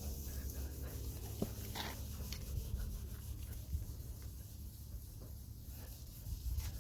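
Cloth rubbing headlight restorer compound over a plastic headlight lens by hand, a soft continuous scrubbing with a few light scrapes and clicks.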